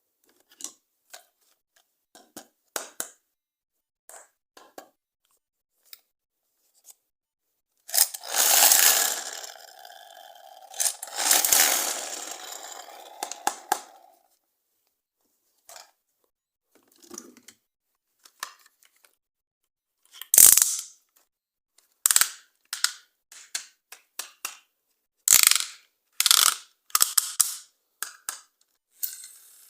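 Plastic toy parts being handled: scattered light clicks, then two loud scraping rushes with a steady hum beneath them, then a run of sharp plastic snaps and clicks in the last third.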